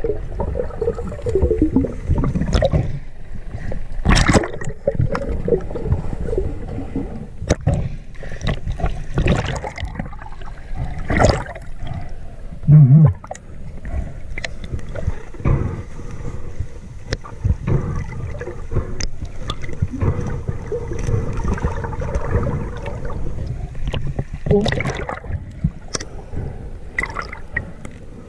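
Muffled underwater sound from a submerged camera: water churning and gurgling with scattered clicks and knocks as the diver moves. One loud low thump about halfway through.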